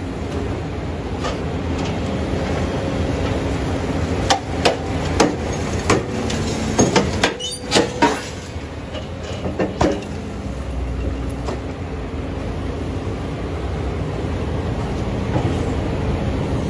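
Hidromek HMK220 excavator's diesel engine and hydraulics running steadily under load while its VTN CI200 shear bites into concrete rubble and scrap steel. A run of sharp cracks and snaps comes from about four to ten seconds in as the material breaks in the jaws.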